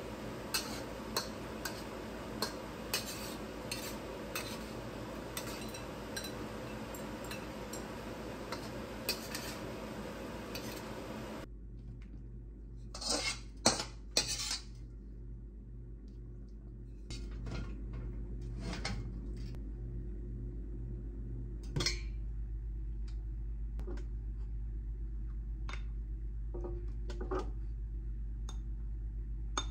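Food sizzling in a hot wok while a metal spatula scrapes and clinks against the pan. After a cut, a metal ladle scrapes and knocks loudly against the wok for a couple of seconds, then a low steady hum continues with occasional light clinks.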